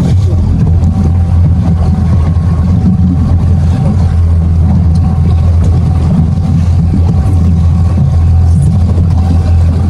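Boat's outboard motor running steadily at low speed, a constant low hum.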